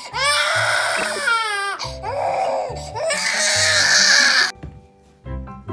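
An eight-month-old baby crying hard in loud, wavering wails, over background music with a steady bass line. The crying cuts off about four and a half seconds in, leaving only the music.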